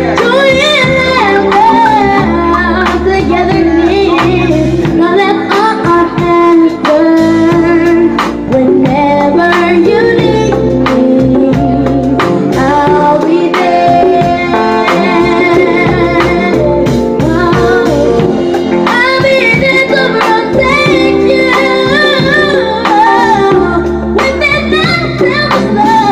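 A young boy singing an R&B ballad lead into a handheld microphone, backed by a live band with keyboard, guitar and drums.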